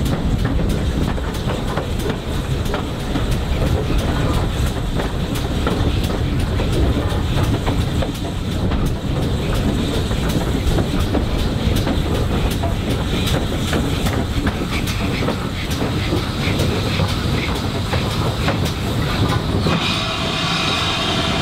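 Steady rumble of a steam-hauled heritage passenger train running along the line, with many sharp clicks from the wheels over the rail joints.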